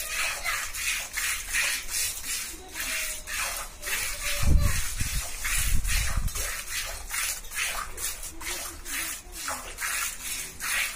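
Hand-milking a cow: milk squirting from the teats into a steel pail in regular hissing strokes, about two a second. A low rumble about four and a half seconds in, lasting under two seconds, is the loudest sound.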